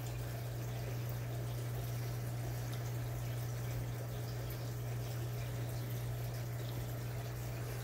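Aquarium filter returning water into the tank: a steady trickle and splash over a constant low hum.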